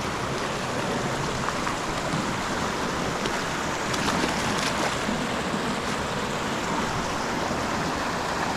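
Creek water rushing steadily, with a few faint clicks about four seconds in.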